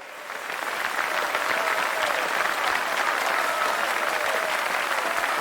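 Large indoor audience applauding, as at a recital: dense clapping that swells in over about the first second and then holds steady.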